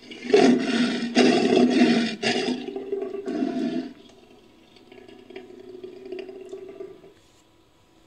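Cave lion roar sound effect made from mixed big-cat roar recordings: a loud, harsh roar broken into about four pulses over the first four seconds. A quieter call follows for about three seconds and stops abruptly.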